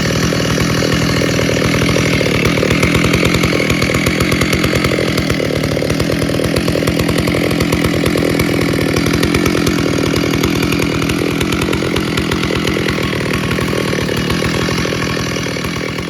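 Stihl 064 two-stroke chainsaw running steadily and loudly with a dense, rapid firing pulse.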